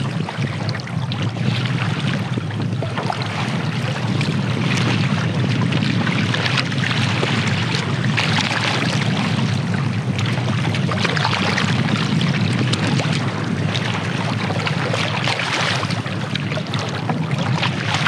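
Wind rumbling on the microphone over water splashing and washing along a canoe's hull as it is paddled through choppy lake water, the splash swelling every second or two.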